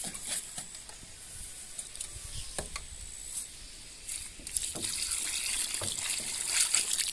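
Water pouring into a bucket onto ground rock salt, a steady splashing hiss that grows louder about four and a half seconds in, with a few light knocks.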